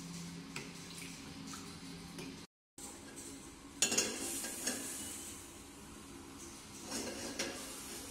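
A metal spoon stirring and scraping in a saucepan of cardamom sugar syrup. After a brief cut-out, a utensil clinks sharply against a pan several times, loudest about four seconds in and again about seven seconds in.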